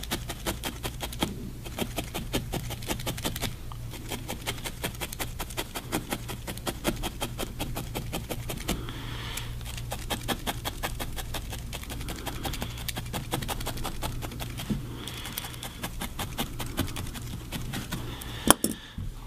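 Felting needle stabbing repeatedly into wool, fixing a white wool eye onto a needle-felted figure: quick, regular pokes, several a second, with one sharper click near the end.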